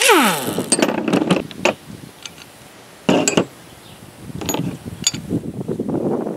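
Impact wrench spinning a nut off an old wheel stud held in locking pliers, its motor winding down in pitch as the trigger is released. Metal clinks and clatter from the nut, stud and pliers follow, with a sharp short clatter about three seconds in.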